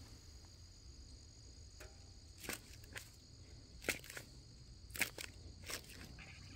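Faint, steady high insect drone, with several short clicks scattered through it.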